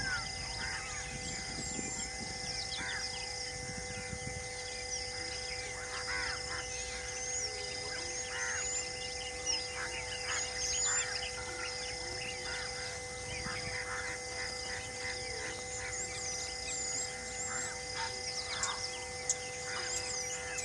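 Wild birds calling in a busy chorus: many short chirps, whistles and quick rising notes from several birds at once, over a steady drone of held tones.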